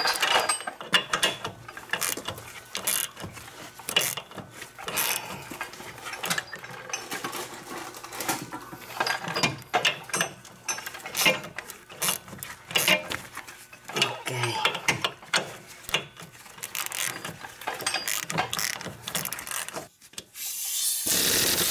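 A hand ratchet clicks over and over as the hub bearing mounting bolts are worked loose. Near the end, a power ratchet runs briefly on the bolt.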